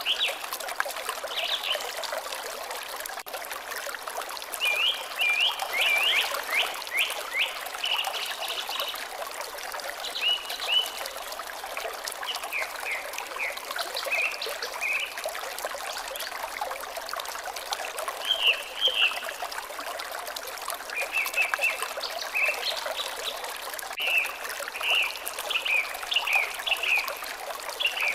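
Water trickling steadily, with a bird calling in bouts of short, quick chirps.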